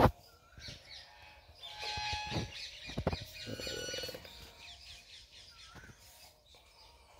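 Birds chirping, faint, with a sharp click at the very start and a few knocks about two to three seconds in.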